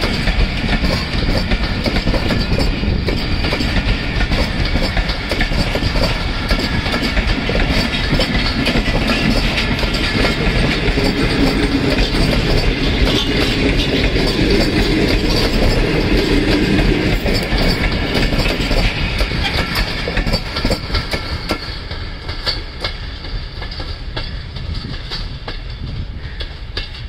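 Passenger train coaches rolling past on the rails, with a steady rapid clickety-clack of wheels over the track. The sound gets quieter from about three-quarters of the way in as the coaches move away.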